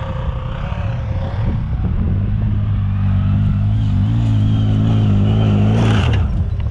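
CFMoto ZForce 1000 side-by-side's V-twin engine running at a steady pitch as it drives through snow. About six seconds in there is a short burst of spraying snow and dirt as it slides around, and the engine note then drops away.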